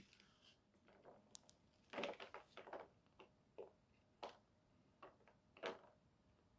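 Faint sounds of biting into a burrito and chewing it. A short cluster of soft mouth smacks and crunches comes about two seconds in, followed by single soft smacks about once a second.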